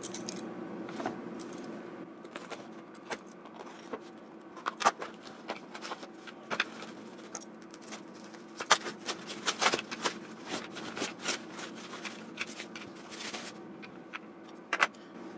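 A small cardboard parcel being opened by hand and its plastic wrapping pulled off: scattered crackles, rustles and sharp clicks of tape, cardboard and crinkling plastic, busiest in the middle, over a faint steady hum.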